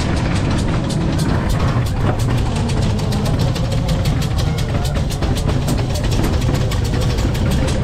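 Loud funfair music with a fast, steady ticking beat and heavy bass, mixed with the rumble of a ghost train ride car running along its track.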